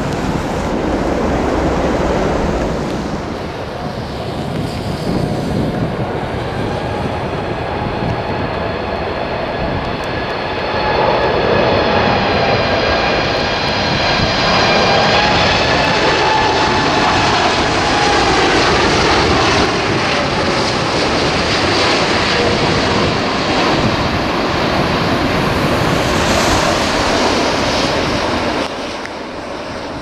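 Boeing 747 freighter's jet engines passing low overhead on final approach: a whine of several tones builds, is loudest in the middle, drops slightly in pitch as the aircraft passes, then fades into a steady rushing noise.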